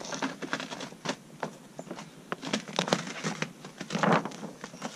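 Thick plastic hive-cover film being peeled off a beehive's top bars, crinkling and crackling in irregular snaps, with a louder rustle about four seconds in.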